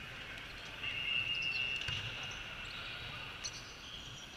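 Volleyball play on an indoor court: a few sharp ball hits and a low thud about two seconds in, with a steady high squeal lasting just over a second starting about a second in.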